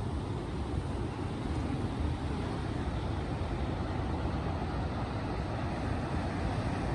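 Steady low rumble of a vehicle on the move, an even noise with no breaks.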